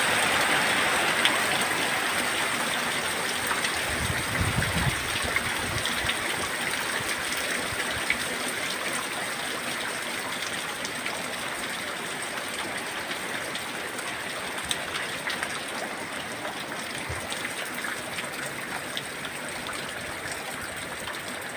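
Heavy wind-driven rain pouring on banana leaves and tiled roofs, a dense steady hiss that slowly grows quieter, with a brief low rumble about four seconds in.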